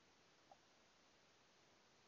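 Near silence: a faint steady hiss, with one brief faint tick about half a second in.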